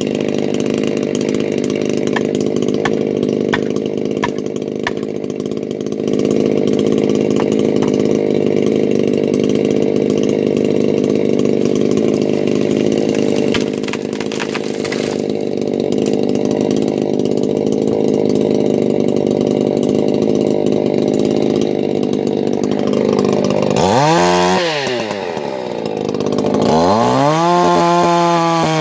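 Two-stroke chainsaw cutting through a cedar trunk, running steadily under load. About 24 s in the saw revs up freely, drops back toward idle, then revs up again and goes into a fresh cut through the fallen log.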